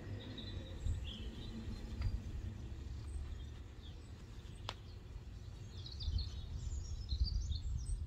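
Outdoor ambience: a steady low rumble with faint bird chirps, most of them near the end, and a single sharp click about halfway through.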